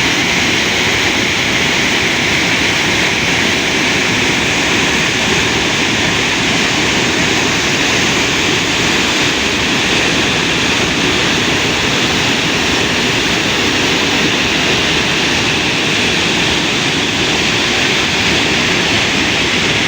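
Waterfall: water falling and rushing in a loud, steady roar that does not change.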